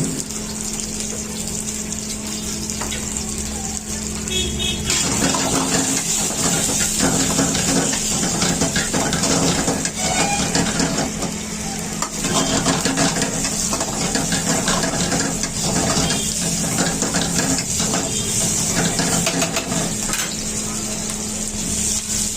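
Food frying in a wok, sizzling with a steady hiss, while a metal ladle stirs and scrapes against the pan; the sizzle grows louder about five seconds in.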